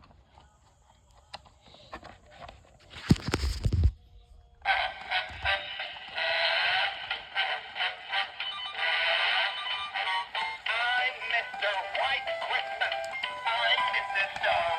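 Gemmy Spinning Snowflake Snowman toy playing its song, a singing voice over music, starting about five seconds in after a short loud handling noise.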